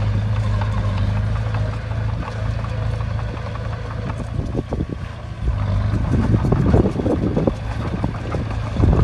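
Heavy diesel engine of an earthmoving machine running steadily, with wind buffeting the microphone over the last few seconds.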